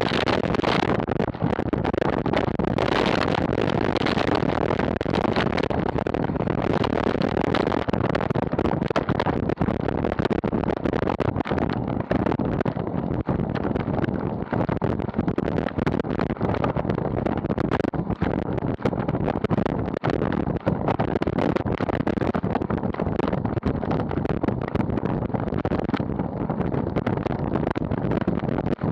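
Steady rushing wind over the microphone of a road bike's onboard camera at riding speed, with tyre noise and faint ticks underneath.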